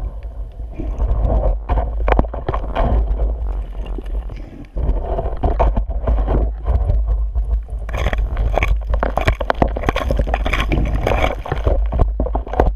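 Underwater recording: a constant muffled rumble of water against the camera housing, with crackling and scraping of sand, gravel and shell being disturbed on the seabed. The crackling grows denser and brighter about two-thirds of the way through, as sand is stirred up close by.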